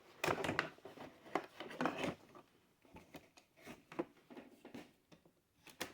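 Small clicks, taps and light rubbing of tools and parts being handled on a workbench, busiest in the first two seconds and sparser after.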